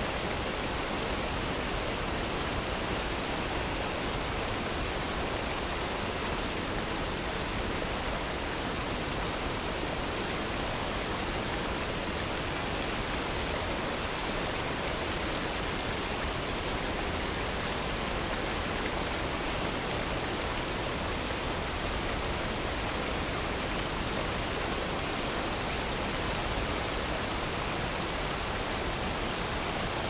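Steady waterfall noise: an even rushing hiss spread from deep to very high, unchanging in level.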